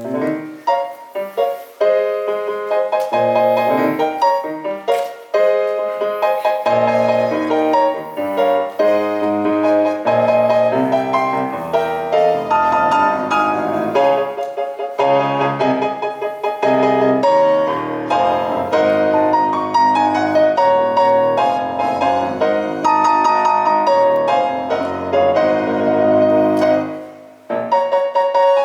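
Piano music, a flowing piece of many notes played continuously, with a brief break near the end before it starts again.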